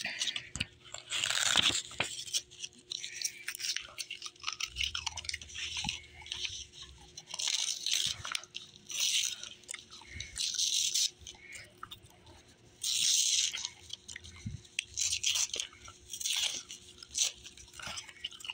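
Printed paper cover insert of a DVD case being torn up and handled by hand: a run of irregular ripping and crinkling bursts with short pauses between them.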